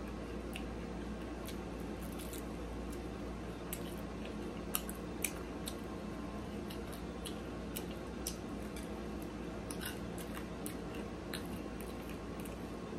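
Chewing and mouth clicks of someone eating a fried pork chop by hand, biting into it and tearing the meat apart, as scattered sharp clicks over a steady low hum.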